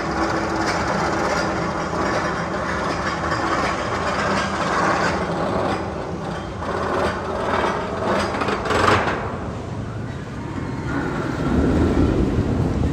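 Magnum XL-200 steel roller coaster train rattling along its track, a loud continuous running noise that eases about nine seconds in before a low rumble builds near the end.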